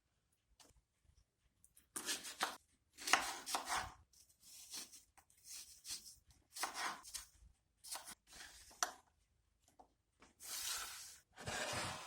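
Knife chopping food on a cutting board, in short irregular bursts of cuts with pauses between them.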